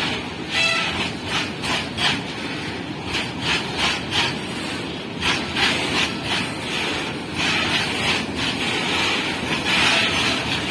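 Freight train of BTPN tank wagons rolling past close by: steady rumble and hiss of steel wheels on rail, with frequent clacks as the wheels pass over the track.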